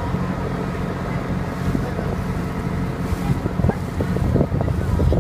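Boat engine running at a steady pitch, with wind buffeting the microphone.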